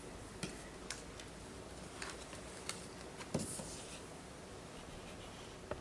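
Faint handling sounds of a hardcover pop-up book being folded shut and lifted: several soft clicks and card rustles, with a dull thump a little over three seconds in and another small knock near the end.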